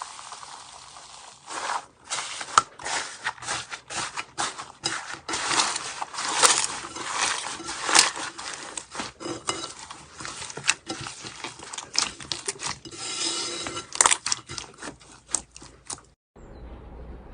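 Slime being squeezed and poked by hand, giving an irregular run of sticky clicks and crackles. It stops abruptly about sixteen seconds in, leaving a faint low hum.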